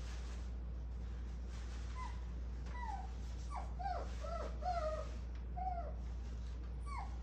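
Puppy whining: a series of short, high-pitched whimpers that bend up and down in pitch, starting about two seconds in and coming closer together toward the end.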